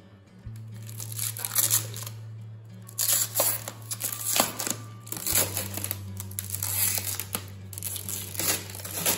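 Packaging crinkling and rustling in irregular bursts as it is handled and pulled open, over a low steady background tone.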